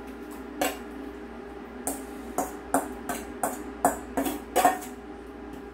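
A metal utensil knocking and scraping kimchi out of a stainless-steel bowl into a pot: a run of about ten sharp clinks, irregularly spaced, over some four seconds.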